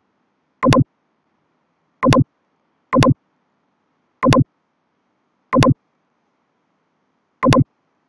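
Computer mouse button clicking: six sharp clicks, each a quick press and release, at uneven gaps of one to two seconds.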